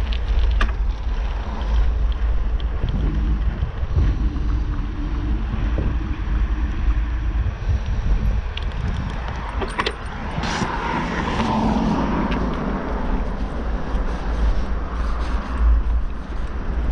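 Wind rumbling on the microphone of a camera on a moving bicycle, over tyre and road noise on asphalt, with a few sharp rattles, the loudest about ten seconds in.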